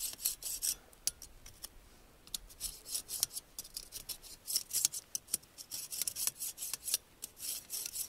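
Scraper rasping back and forth across the wires of a Bitty Big Q folding grill grate, scraping off burnt-on grease and meat residue in quick strokes; the strokes thin out to a few clicks about a second in, then pick up again and come thick near the end.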